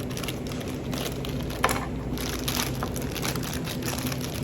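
Toy packaging being handled and opened, irregular crinkling and crackling, with one sharp snap or click about one and a half seconds in, over a steady low hum.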